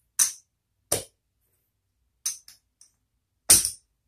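Poker chips clacking against each other as a hand takes down the losing bets: four sharp clacks spread over a few seconds, a couple of lighter ticks after the third, the last one the loudest.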